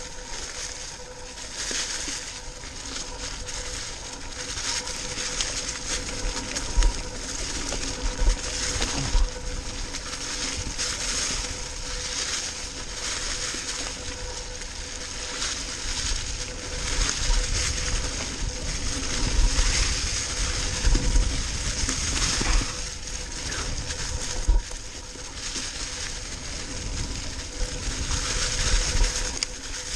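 Mountain bike tyres rolling through deep dry fallen leaves, making a continuous crunching rustle, with occasional thumps as the bike hits bumps on the trail.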